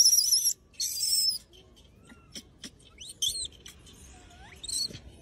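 Young rhesus macaque screaming: a shrill, wavering scream in the first half second and again briefly about a second in. After that come scattered faint chirps and clicks, and a short rising call near the end.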